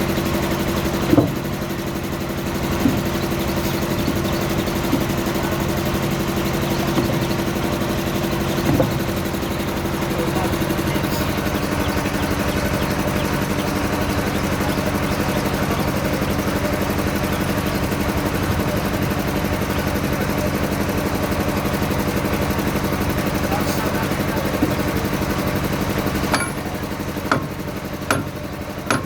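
Heavy diesel engine of the excavator or lowboy truck idling steadily, with a few short metallic knocks from the work around it, the loudest about a second in and several near the end. The engine note steps slightly about a third of the way through and turns quieter near the end.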